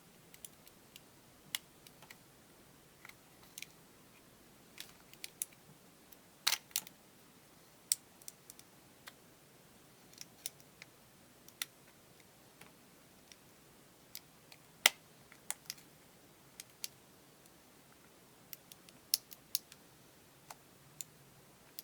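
Irregular sharp clicks and snaps of small plastic parts as a tool pries at a wireless earbud's plastic casing, a few of them loud.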